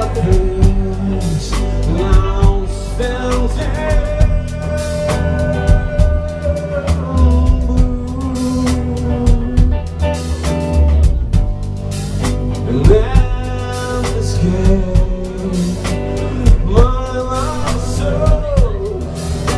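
Rock band playing live: distorted electric guitars over a steady drum-kit beat, with a singer's voice at the microphone.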